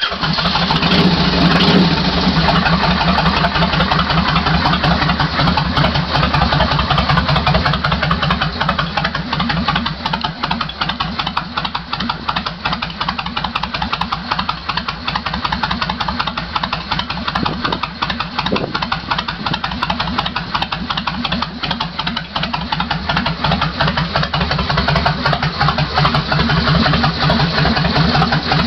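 Kawasaki Vulcan 1500 Classic V-twin idling through Vance & Hines aftermarket pipes, just after a start. It runs with an even, rapid beat of exhaust pulses, a little faster and louder for the first couple of seconds before it settles.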